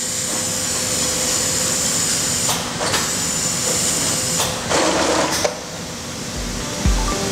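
Automatic laser template sewing machine running, stitching a T-shirt placket as its head travels around the template, with a steady mechanical din and a thin high whine. A few short noisy bursts come through it about two and a half seconds in, and again around five seconds.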